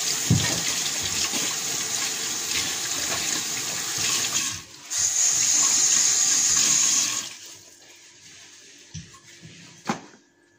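Kitchen tap running: a steady spell of about four and a half seconds, a short break, then a louder spell of about two seconds before it is turned off.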